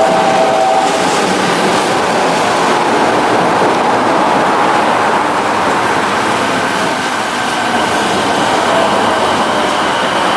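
Kobe Municipal Subway 1000-series electric train pulling into an underground station, its cars rolling past and slowing with a steady, loud wheel and motor noise and a faint whine.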